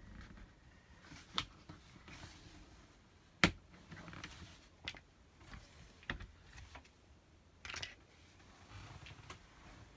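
A handful of scattered clicks and knocks from hands working the corner pieces of a caravan window blind and flyscreen frame. One sharp click about three and a half seconds in is the loudest.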